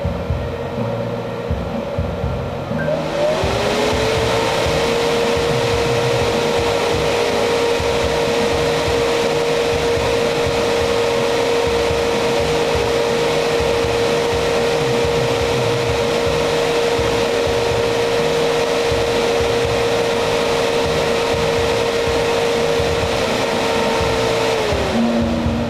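Amplifier heatsink cooling fan spinning up from low to high speed about three seconds in, a rising whine that settles into a steady hum with a strong rush of air, then winding back down near the end. The speed change is the fan controller responding to the heatsink temperature sensor being heated by a soldering iron.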